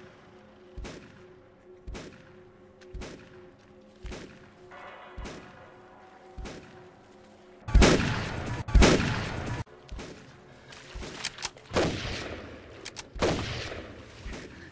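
Pump-action shotgun blasts: two loud shots about a second apart near the middle, then several more shots in the last few seconds. Before them, a low steady drone with a soft thud about once a second.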